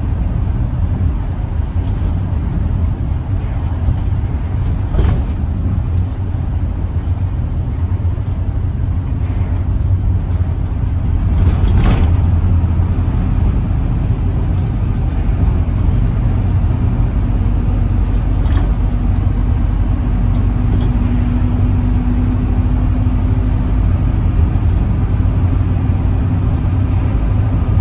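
Inside a moving Mercedes-Benz O814 / Plaxton Beaver 2 minibus: steady diesel engine drone and road rumble, with a few sharp knocks and rattles. It gets louder for a moment about twelve seconds in.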